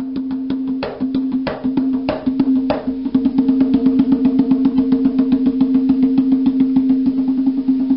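A barrel-shaped hand drum played with bare hands over a fast, even clicking beat of about eight strikes a second, with a steady ringing tone underneath. There are a few heavier strokes in the first three seconds.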